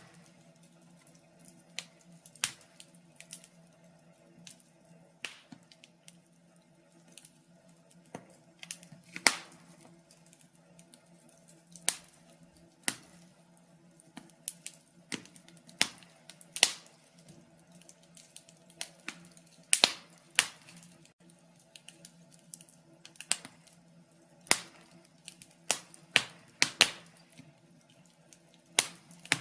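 Fire in a fireplace crackling: irregular sharp pops and snaps, a few a second, some much louder than others, over a faint steady low hum.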